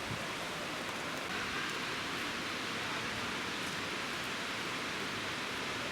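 Waterfall rushing, heard as a steady, even hiss.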